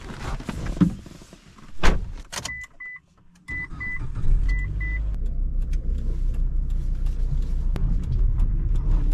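Car sounds: clicks and a sharp thump, then a dashboard chime beeping six times in quick pairs. The car's engine starts a few seconds in and then runs at a steady idle.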